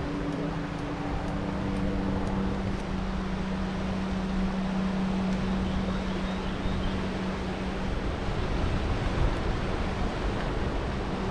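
Riding a bicycle, heard from a handlebar-mounted camera: a steady rush of wind over the microphone and tyre noise, with a steady low hum underneath. A second, higher hum drops out about two seconds in.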